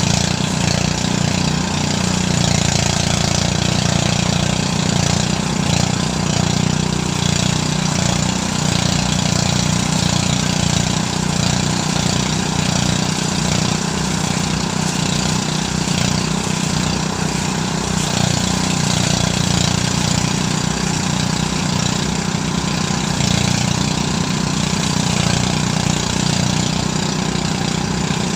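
Engine-driven rice thresher (perontok padi) running steadily: a continuous engine hum under a dense, even rushing noise from the threshing.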